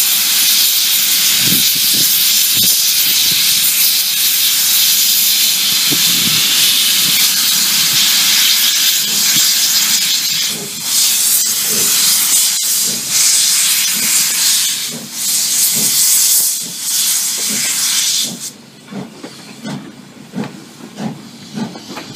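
Steam hissing loudly from the open cylinder cocks of a 1923 Montreal Locomotive Works 0-6-0 steam switcher as it passes close by, over low thumps from the running gear. About 18 seconds in the hiss drops away, leaving the passenger coaches rolling past with quieter rail clatter.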